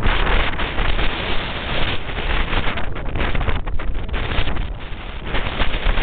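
Strong gusting wind buffeting the camera microphone, a loud rush that swells and eases from gust to gust, heavy in the low end.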